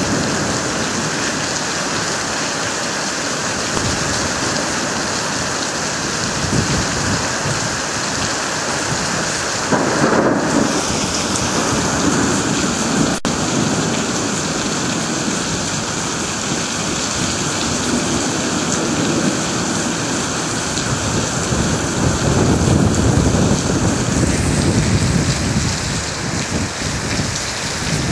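Heavy rain pouring steadily in a severe thunderstorm, with thunder rumbling about ten seconds in and a longer rumble in the last few seconds.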